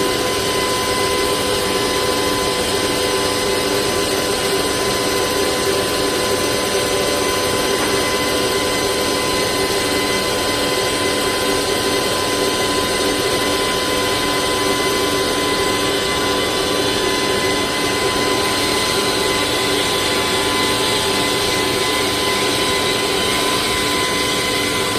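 CNC machine with an oscillating (vibrating) knife head cutting EVA foam: a steady mechanical whine over an even hiss.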